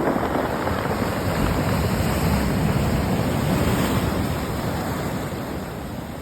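Sea waves washing in and out over a beach of rounded pebbles, the stones clattering against each other in the surf. The wash swells through the middle and eases off near the end.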